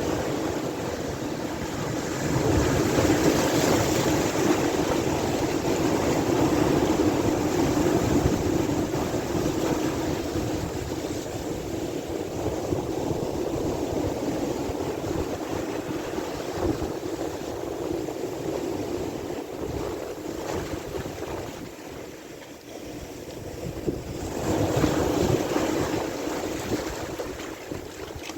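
Sea waves washing in surges, with wind buffeting the microphone. One louder swell comes a couple of seconds in, and another follows a brief lull near the end.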